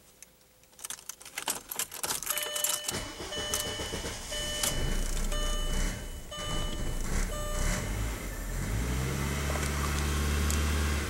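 Ignition key clicking, then the 1.8-litre turbo four of a 1999 VW Passat cranking and catching about eight seconds in, settling into a steady idle. A warning chime beeps about once a second during the cranking. The engine had just stalled and is being restarted; its mass airflow sensor is failing and reads stuck high.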